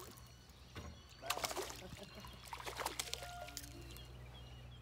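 A hooked fish splashing at the water surface beside the boat as it is reeled in, in two short spells of splashing, the first about a second and a half in and the second near three seconds.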